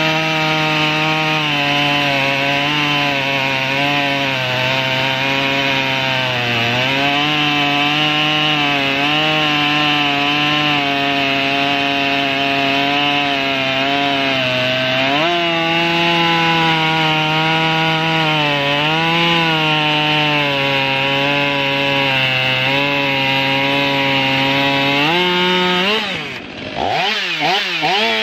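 Husqvarna 572 XP chainsaw running at full throttle through a round of dried red oak, its pitch wavering as the chain loads and unloads in the cut. About 26 seconds in the sound breaks off briefly, then a Stihl 500i fuel-injected chainsaw revs up into the same cut.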